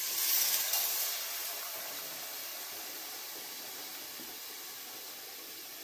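Chicken stock poured into a hot pot of browned chicken and spice paste, hissing and sizzling as it hits the hot bottom of the pan. The hiss is loudest in the first second, then dies down to a steady low sizzle.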